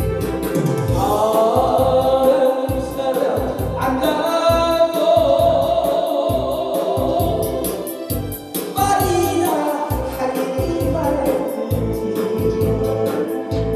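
A man singing a Korean trot song over an accompaniment with a steady beat. The vocal phrases break briefly just past the middle.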